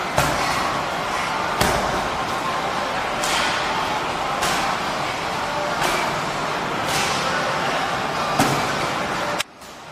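Strikes landing on Muay Thai pads, a sharp slap about every second and a half, over a steady background of noise. The sound drops out briefly near the end.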